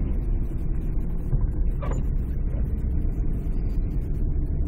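Steady low rumble of a vehicle's engine and tyres on a snow-covered road, heard from inside the cab, with one brief sharp sound about two seconds in.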